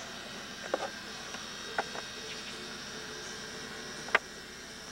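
Steady high-pitched chirring of insects, crickets or the like, with three short sharp clicks: one about a second in, one near two seconds, and the loudest about four seconds in.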